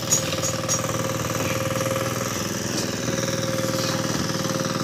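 A small engine idling steadily, with an even low drone and a fast, regular throb. A few light clicks come in the first second.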